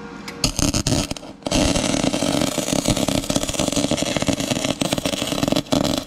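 Flux-core MIG welding arc crackling and sizzling from a Lincoln Electric Power MIG 210 MP. A short burst of arc about half a second in, a brief break, then one continuous bead of about four seconds that stops just before the end.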